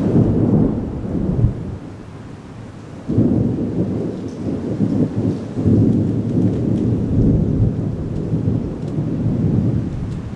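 Thunder: a sudden rumble at the start that dies away within about two seconds, then a second, longer rumble that breaks about three seconds in and goes on for several seconds before fading near the end.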